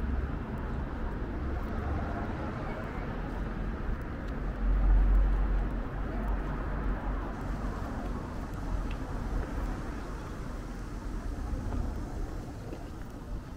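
City street ambience: a steady low rumble of road traffic, swelling once about five seconds in.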